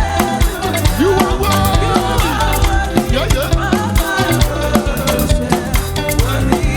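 Church praise music with a steady beat and heavy bass.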